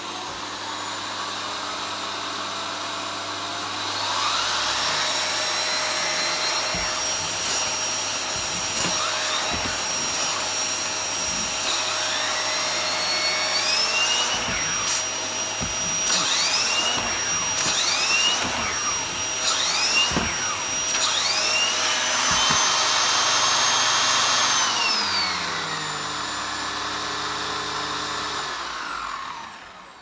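Hoover Performer bagged cylinder vacuum cleaner running on its minimum setting, with an air-driven turbo brush on a carpet mat. The brush's turbine whine rises and falls again and again as the brush is pushed back and forth. Near the end it winds down and the vacuum stops.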